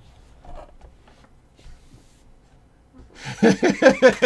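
A few seconds of faint room noise, then a man laughs out loud in quick pulses, starting about three seconds in.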